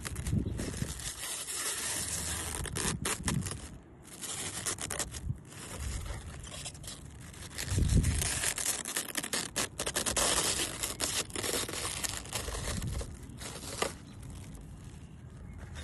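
Protective wrapping being torn, scraped and crinkled as it is pulled off an RC van, with scattered sharp crackles and a few dull thumps as the model is handled.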